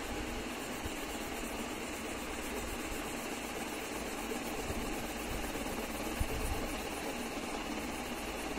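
Green wax crayon scribbling on paper in quick back-and-forth strokes, a steady scratching.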